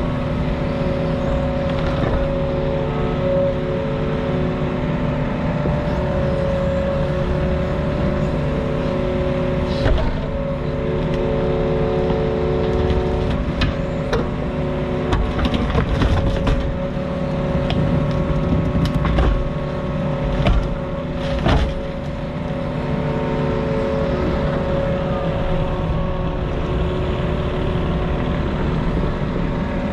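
Mini excavator's diesel engine running steadily, with several sharp knocks about ten seconds in and again between about fifteen and twenty-two seconds in as the machine works.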